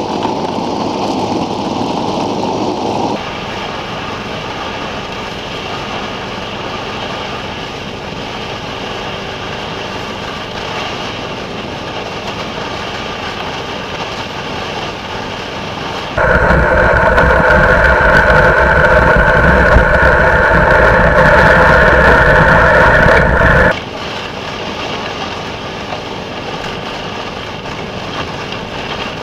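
SnowDog tracked snow machine's small engine running as it travels over snow towing a sled. About halfway through the engine sound jumps much louder and higher for several seconds, then drops back suddenly.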